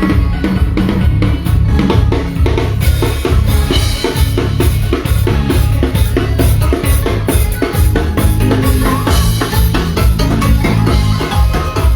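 Live band playing loud, with a drum kit to the fore: bass drum and snare hits keep a steady, driving beat over heavy bass.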